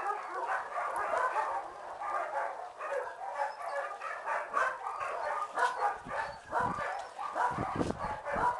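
Many dogs barking at once, a continuous clutter of overlapping barks from a kennel full of shelter dogs.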